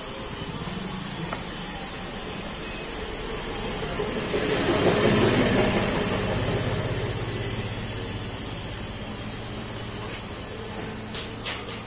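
Kubota DR120 combine harvester running, a steady engine hum under machinery hiss that swells louder for about two seconds around four seconds in, then settles. A few sharp clicks come near the end.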